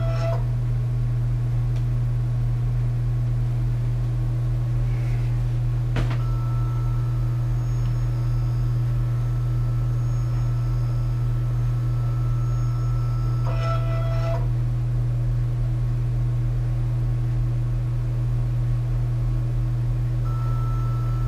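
Kudo3D Titan 1 DLP resin 3D printer running mid-print with a steady low hum. Near the start and again about fourteen seconds in there is a brief motor whine, and about six seconds in a single click.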